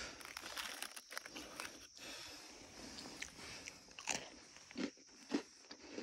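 Someone eating a crunchy snack close to the microphone: crackly crunching bites and chewing, dense for the first couple of seconds, then a few separate crunches.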